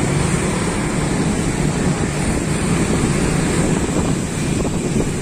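Wind buffeting the microphone: a loud, steady rush with a heavy low rumble.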